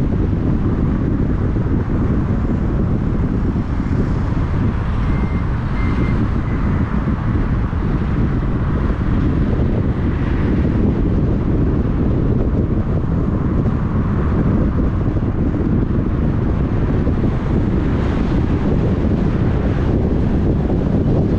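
Steady wind rumble on the microphone over the road noise of a moving vehicle.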